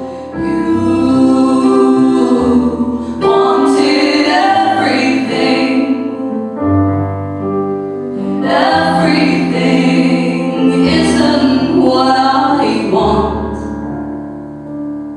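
Live folk song: female voices singing in harmony over a sustained instrumental accompaniment, easing off near the end.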